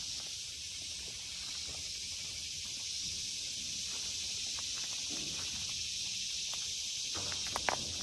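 A steady, high-pitched insect chorus, with footsteps and brush rustling underneath and a few sharp clicks near the end.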